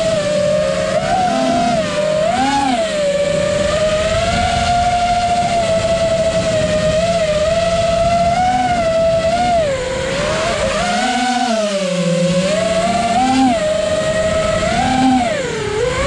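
FPV racing quadcopter's brushless motors and propellers whining, heard from its onboard camera. The pitch wavers up and down every second or two with the throttle, with a deeper drop and climb about ten seconds in.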